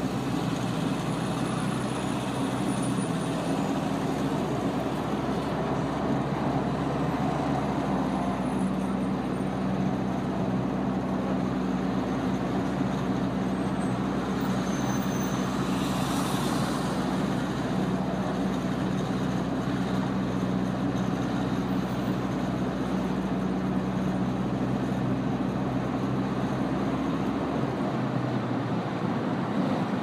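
City street traffic ambience: a steady low engine hum from vehicles close by, over the general noise of passing traffic. A short hiss about halfway through.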